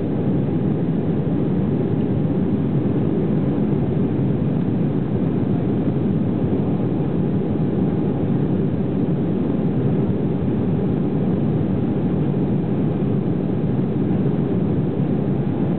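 Airliner cabin noise: the steady roar of jet engines and rushing air heard inside the passenger cabin during the climb, with a faint steady whine above it.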